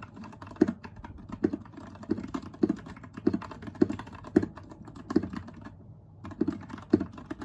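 Typing on a Royal Kludge RK61 mechanical keyboard fitted with Gateron Yellow linear switches and keycaps, a steady run of keystrokes with stronger low-pitched strokes about twice a second and a brief pause about six seconds in.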